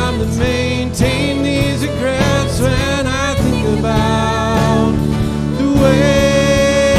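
Two women singing a slow worship song over a strummed acoustic guitar, with sustained sung notes.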